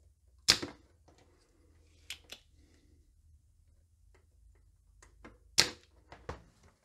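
Sharp clicks and taps from hand tools working on a circuit board while a capacitor is desoldered: two loud snaps about five seconds apart, with a few lighter clicks between and after.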